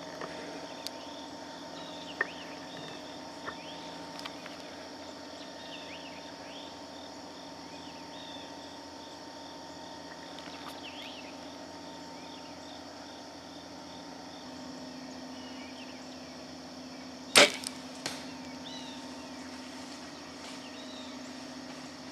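A bow is shot at a doe: one sharp, loud snap of the string and limbs about seventeen seconds in, followed under a second later by a fainter knock. Insects chirp steadily in the background throughout.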